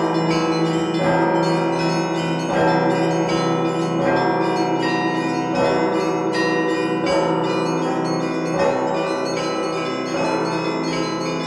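Russian Orthodox church bells pealing, heard close up from the bell tier. Deep bells hum steadily under a repeating pattern of middle bells struck about every second and a half, with small bells chiming rapidly above.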